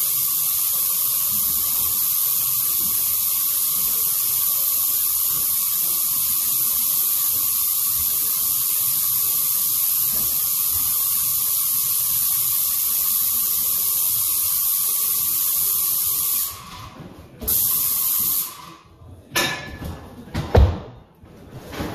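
Airless paint spray gun hissing steadily as it sprays a mist coat onto new plaster, with a steady high tone under the hiss. The spray cuts off about three-quarters of the way through, comes back for about a second, then stops, followed by several knocks and bumps.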